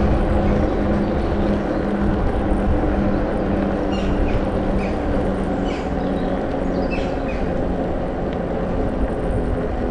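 Bicycle riding on a paved park path: wind buffeting the microphone and tyre rumble, with a steady low hum underneath.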